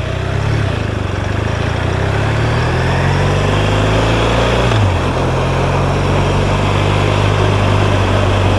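BMW R1200RT motorcycle's boxer-twin engine pulling away, its note rising steadily. About five seconds in the note drops sharply as it shifts up, then holds steady, under wind and road noise.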